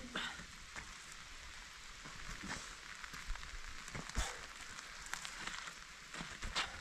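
Steady rain falling, with scattered drips and taps.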